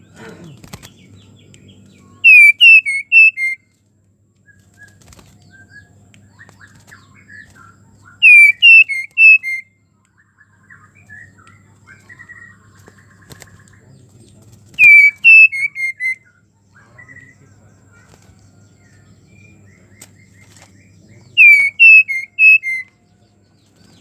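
Female white-rumped shama giving four loud phrases, each a quick run of four or five falling whistled notes, about six seconds apart, with softer chirps in between. This is a hen shama's breeding-condition call to a male.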